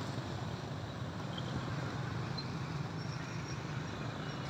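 Boat's 20 hp Honda engine running steadily under way, a constant low drone with the rush of water and air over it.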